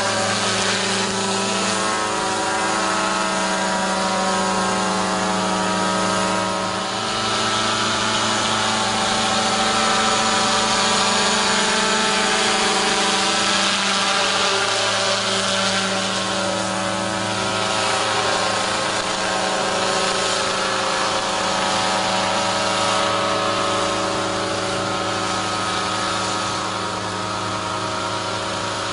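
Small engine of a motorized sprayer running steadily at constant speed, with a rushing hiss that grows louder for several seconds in the middle and then eases.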